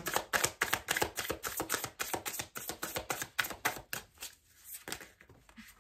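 A deck of tarot cards shuffled by hand: a rapid run of soft card clicks, several a second. It thins out and fades after about four seconds.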